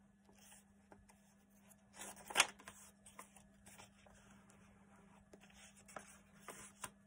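Paper pages and cards of a handmade journal being turned and handled: soft rustles and small taps, with one louder rustle about two and a half seconds in.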